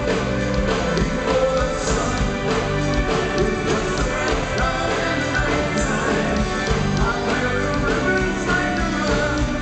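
A live rock band plays full-on: electric and acoustic guitars, bass guitar, a drum kit with a steady beat, and keyboards, with voices singing over it.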